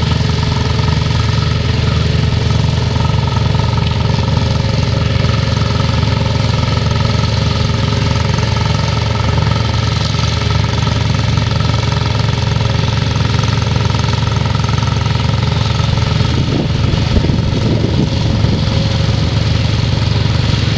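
Small ride-on garden tractor's engine running steadily at a constant speed, a low, even engine note throughout.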